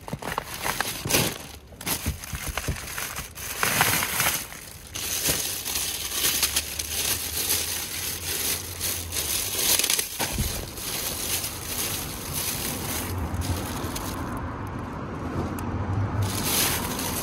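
Plastic bags and packaged salad bags crinkling and rustling as gloved hands rummage through a plastic tote, in short irregular bursts at first, then more continuously from about five seconds in.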